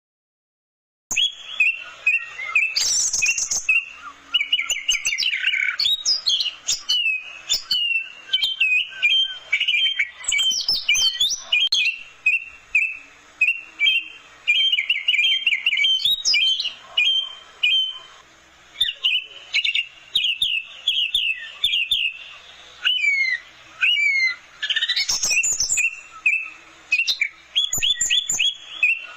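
Orange-headed thrush singing a long, varied song, starting about a second in: fast runs of quick repeated notes and whistled phrases with short pauses between them.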